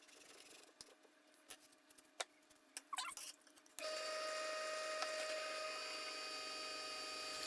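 A few light clicks and knocks of handling, then an electric drill starts about halfway through and runs steadily with a whine.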